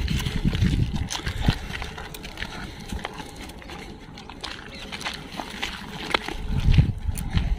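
Footsteps and dogs' paws crunching and clicking on a rocky, gravelly trail, with a low rumble near the start and again near the end.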